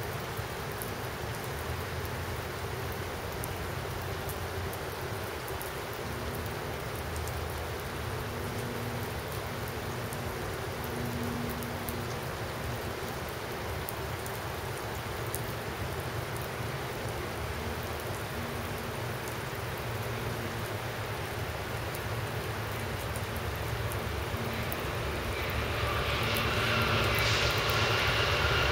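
Steady rain hiss with a low rumble, then an approaching passenger train growing louder over the last few seconds, with several high steady tones rising out of the noise.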